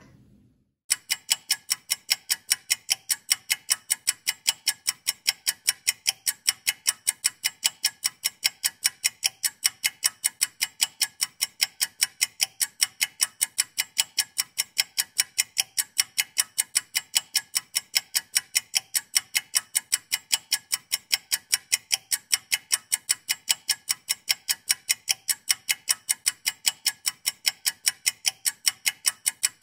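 Ticking-clock countdown sound effect timing a two-minute puzzle: sharp, evenly spaced ticks, about two to three a second, starting about a second in.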